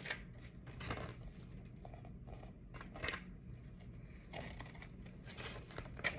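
Toy packaging and paper being handled: scattered short rustles and crinkles, with sharper ones at the start, about three seconds in, and near the end.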